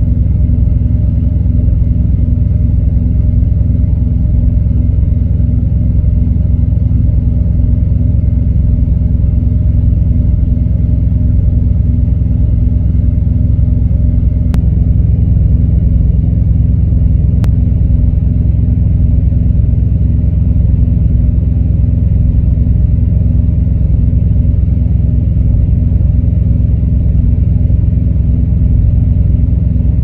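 A steady low engine drone running evenly, with no change in pitch or level.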